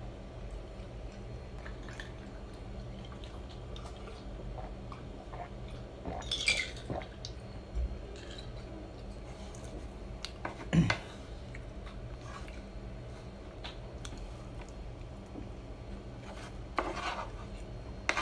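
A wooden spoon scraping and knocking on a wooden plate as leftover rice is gathered up: a few short, separate scrapes, the loudest about eleven seconds in, over a faint steady hum.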